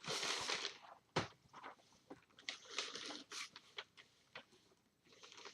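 Rustling and crinkling of packaging, with light clicks and knocks, as food items are handled and set aside.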